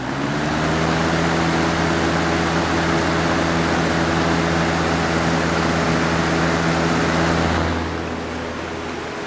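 Windmere 223 box fan (a rebadged Lakewood) running on high with its grill off: the motor's hum settles to a steady pitch just at the start as it comes up to speed, under a loud rush of air that eases a little near the end.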